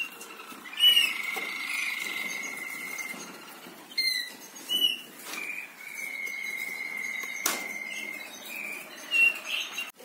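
Caged songbirds chirping and singing, with two long held whistling notes and several short chirps. A single sharp click about seven and a half seconds in.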